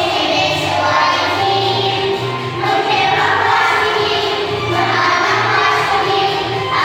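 A group of children singing a song together over a recorded backing track with a steady bass line.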